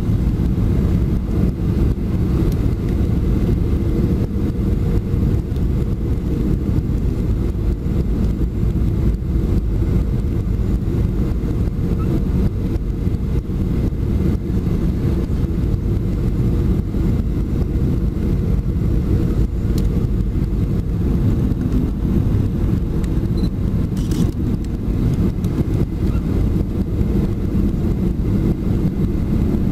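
Boeing 737-400 cabin noise on final approach: the CFM56-3 turbofan engines and the airflow make a steady, loud low rumble with a steady hum through it.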